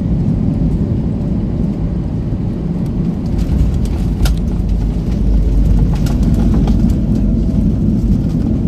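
Cabin noise of a Boeing 737 MAX 8 on landing: a steady low rumble that grows heavier about halfway through, with a few short rattles.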